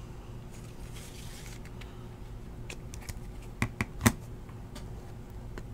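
A few soft clicks and taps from hands handling a clear plastic card holder and a small cardboard pack box, mostly in the second half, over a low steady hum.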